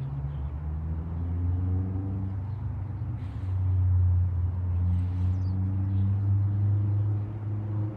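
Car engine running close by: a steady low hum whose pitch drifts slowly up and down.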